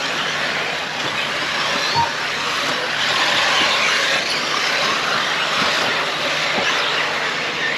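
Brushless electric off-road RC cars racing around a dirt track, a steady mix of high motor whine and tyre noise. A short beep sounds about two seconds in.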